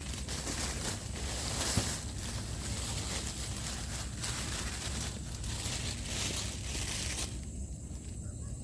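Continuous rustling and crinkling, dense with fine crackles, that stops abruptly near the end, over a steady low rumble.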